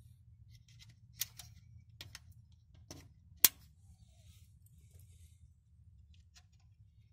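Small plastic trim clips being pressed into a plastic dash surround: a few light clicks and handling sounds, with one sharp snap about three and a half seconds in as a clip seats.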